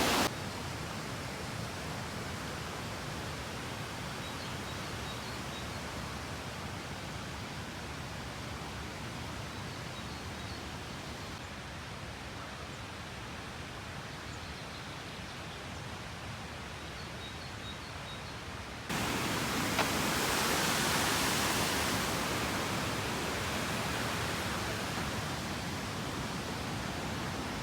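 Steady outdoor rushing noise, with a few faint, high, short chirps repeated in small groups. About two-thirds of the way through it jumps suddenly louder and brighter for the last several seconds.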